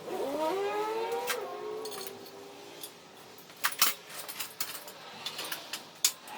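A wavering, gliding squeal for about the first two seconds, then a run of sharp metallic clinks and clanks from tools and parts being handled during an LS engine teardown.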